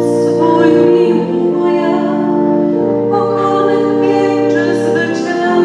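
Music with singing: long held chords that shift every second or two.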